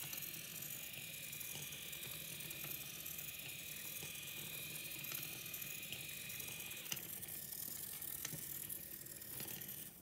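DF Robot Maqueen robot car's small geared drive motors whirring as it drives and turns, with a steady high whine that drops away about seven seconds in.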